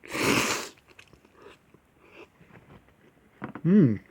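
A loud slurp of Korean instant noodles in the first second, then faint chewing clicks, and near the end a short hummed 'mm' from the eater whose pitch rises then falls.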